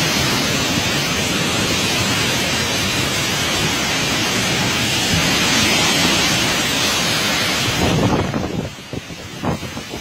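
Storm of strong wind and heavy rain: a steady, dense rush that breaks off about eight seconds in into uneven gusts of wind on the microphone.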